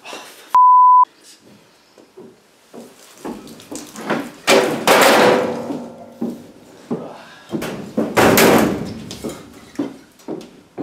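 A short, loud, pure beep, then a door banged twice, about four and eight seconds in, each bang followed by a ringing tail, with smaller knocks and rustling between.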